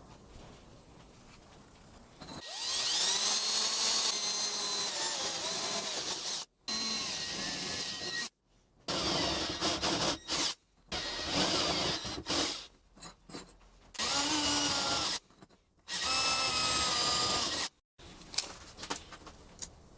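Small angle grinder spinning up about two seconds in, then running with a high whine and loud grinding noise, broken by several sudden breaks.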